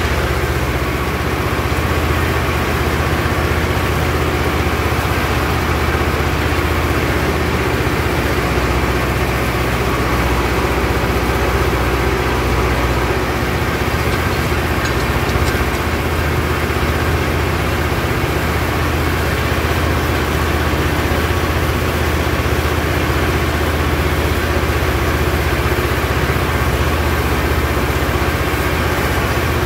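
Tractor engine running steadily while it pulls and drives a Fahr KH 4 rotary hay tedder turning cut hay, heard close up from the tractor.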